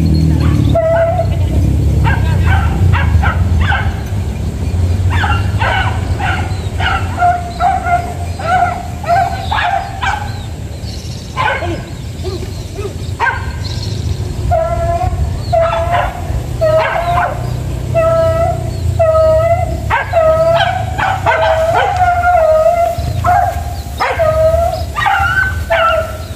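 A pack of hunting dogs, beagles and village dogs, baying and yelping over and over in short calls, one or two a second with a brief lull midway: the cry of dogs working a scent during a mongoose hunt.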